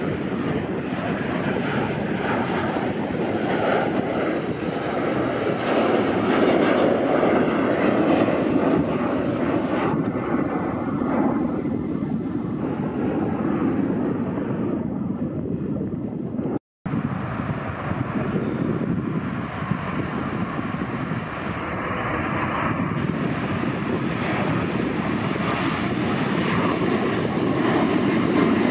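Jet airliner engines on climb-out after takeoff, a steady noise: first a Spirit Airbus A321, then, after an abrupt cut about two-thirds of the way in, a second twin-engine jet climbing out.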